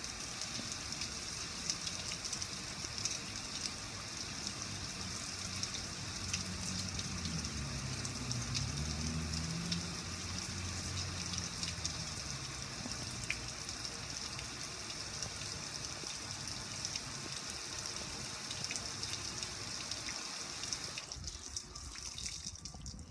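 Water cascading over a gas grill's lid and front panel and splashing onto the concrete below, a steady patter with small drip ticks. The flow dies away about 21 seconds in, leaving scattered drips.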